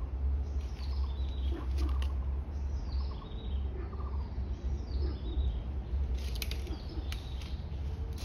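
Wild birds chirping, short calls repeated every second or so, over a steady low rumble.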